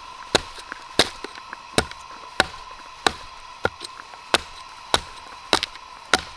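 Wood being chopped with a hatchet, most likely kindling for a campfire: about ten sharp strikes at an even pace, roughly one every two-thirds of a second.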